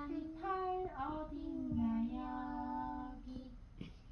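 A child singing wordlessly to himself in long held notes that slide up and down in pitch.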